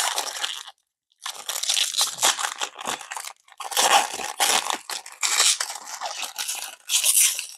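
Trading card pack wrapper crinkling and tearing as it is handled and ripped open, in crackly bursts with two brief pauses.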